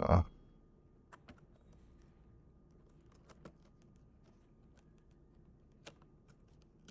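Scattered light clicks and taps of plastic packaging being handled as a boxed figure is opened, with one louder short knock right at the start.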